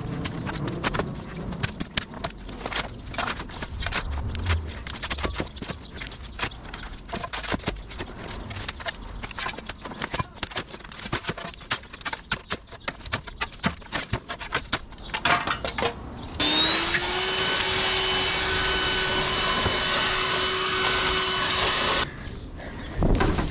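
Digging and scraping in dirt and brush with a shovel and by hand: a dense run of irregular scrapes and clicks. About sixteen seconds in, a cordless leaf blower spins up with a rising whine, runs steadily for about five seconds and cuts off abruptly.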